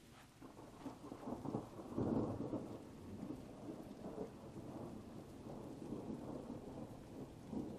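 Rolling thunder from a thunderstorm: a low rumble that builds about half a second in, is loudest around two seconds in, and keeps rolling unevenly after that.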